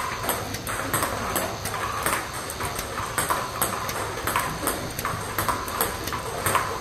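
Table tennis balls clicking off the table and the paddle in quick, uneven succession as a player hits a stream of fed topspin balls with forehand flicks and drives.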